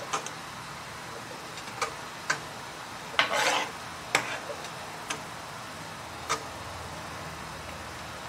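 Wooden spatula stirring a simmering cheese sauce in a pan, with short knocks of the spatula against the pan over a steady sizzle. A longer scrape about three seconds in is the loudest sound.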